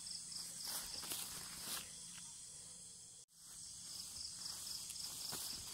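Insects chirping steadily, a rapid pulsing chirp over a high hiss, with a few brief rustles and knocks from handling. The sound drops out for a split second a little past halfway.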